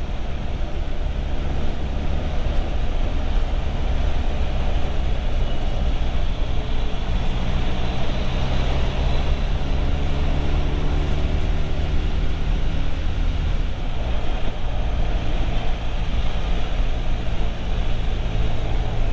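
Motorcycle engine running steadily under heavy wind noise while riding at speed on an open road, its note shifting in pitch around the middle.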